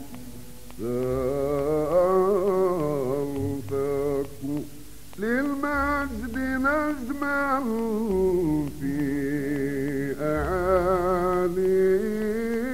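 Solo male voice singing Moroccan Andalusian inshad: slow, unmetered, heavily ornamented phrases with wavering, bending pitch and short breaks between them. The sound is thin, cut off above the upper mids like an old recording.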